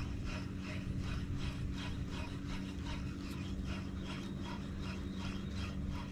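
Spinning reel being cranked steadily to retrieve a lure: a soft rasping stroke about three times a second, over a low steady hum.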